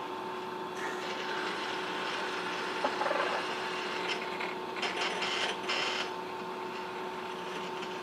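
Baxter robot's arm motors whirring as the arm moves, over a steady electrical hum, with a click and short scraping sounds of gearbox parts being handled on the workbench.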